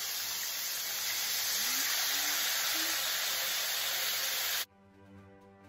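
Pot of meat boiling hard on a gas stove: a steady, loud hiss of rolling boil that cuts off suddenly about four and a half seconds in, after which faint music plays.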